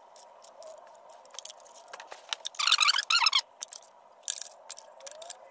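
Ratcheting clicks of a digital torque wrench turning intake manifold bolts down. Scattered clicks, with a fast run of ratchet clicks about two and a half seconds in.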